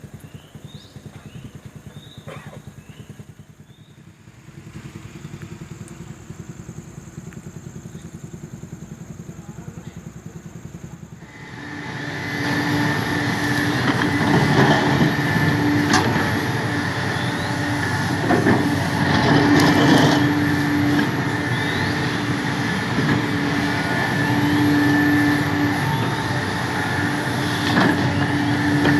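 Sumitomo SH350 excavator: the diesel idles quietly, then about eleven seconds in it speeds up and the machine gets loud under work, with a steady whine and occasional metal clanks.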